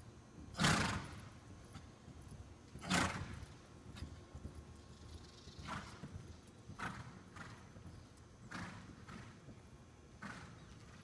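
A ridden horse moving on soft arena footing: muffled hoofbeats and breathing, with several louder noisy snorts, the two loudest about a second and three seconds in, and weaker ones every second or so after.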